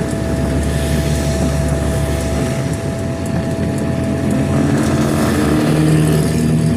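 Inside a car driving on a rain-soaked road: a steady engine hum under a wash of tyre and rain noise. The engine note changes about two and a half seconds in and again near the end.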